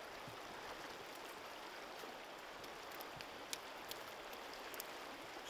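Faint steady rush of river water, with a few light ticks and drips in the second half.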